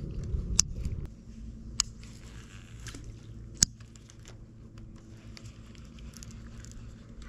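Handling noise from a rod and baitcasting reel being cranked on a retrieve: a low rumble for about the first second, then a quieter steady hum broken by a few sharp clicks.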